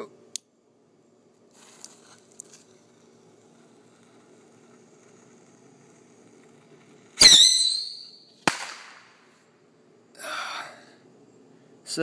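A small rocket firing from a homemade handheld launcher. About seven seconds in comes a sudden loud blast, with a high whistle falling in pitch and fading over about a second. About a second later there is a sharp crack as the rocket goes off.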